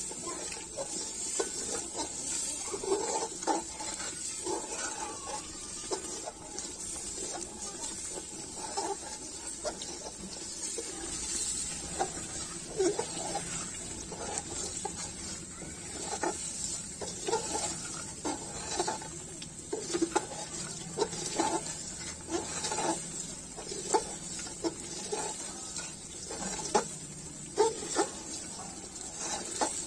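Metal ladle stirring a simmering curry in a metal pot, scraping and knocking against the pot's sides and bottom in irregular strokes, over a steady high hiss.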